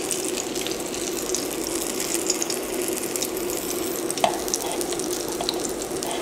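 Vegetable pakoras deep-frying in hot oil in a saucepan: a steady bubbling sizzle full of small crackles, over a steady low hum. About four seconds in, a metal spoon clinks once against the steel bowl.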